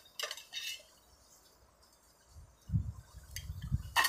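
A few light clinks of chopsticks and a spoon against a ceramic noodle bowl, then a quiet stretch. About two and a half seconds in, an uneven low rumbling starts, with a couple of small clicks.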